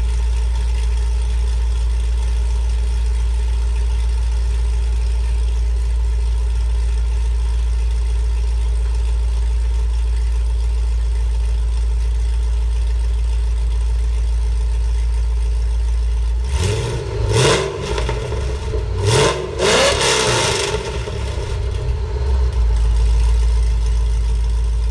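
2004 Pontiac GTO's 5.7-litre LS1 V8 running through long-tube headers, a catless X-pipe and a Corsa sport axle-back exhaust, idling steadily. About sixteen seconds in it is blipped in a few quick revs, then settles back to idle.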